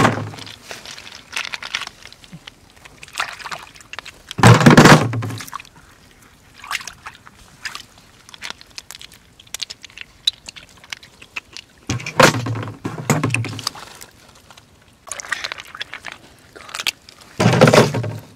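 Hands sloshing and scooping through shallow muddy water and waterlogged grass to pick out snails, with many small clicks of shells and twigs. Three louder sloshing bursts come about four seconds in, about twelve seconds in and near the end.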